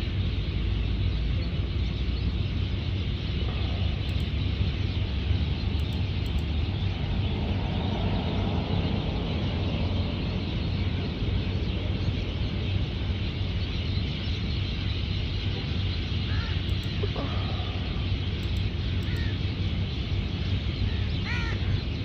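Steady low rumbling background noise, with a few short bird calls in the last few seconds.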